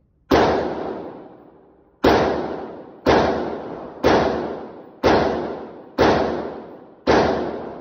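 Seven pistol shots fired by hand at an indoor shooting range. One comes first, then after a short pause the other six come at about one a second. Each shot is loud and rings out with a brief echo in the enclosed booth.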